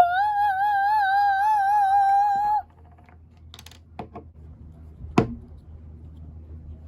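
A child's voice singing one long high note with a wavering vibrato for about two and a half seconds, then a few soft clicks and taps.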